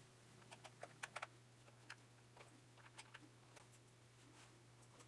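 Faint, irregular light clicks and taps of a small screwdriver and tiny screws being worked out of a digital SLR's plastic base, over a low steady hum.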